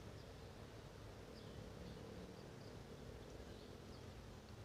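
Quiet streamside ambience: several short, faint high-pitched chirps scattered over a low steady rumble.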